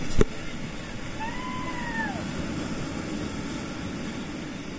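Sea surf washing over shoreline rocks, with a sharp knock just after the start. About a second in, a single drawn-out call rises and then falls in pitch.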